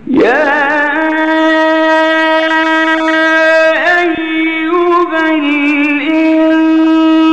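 A male Qur'an reciter's voice in slow, melodic mujawwad recitation, holding one long vowel at a steady pitch, with small turns of the melody about four and five seconds in.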